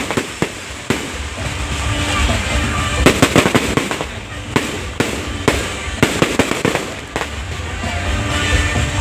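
Aerial fireworks going off in quick succession: sharp bangs and crackling, with a dense volley of reports about three seconds in and another near the end.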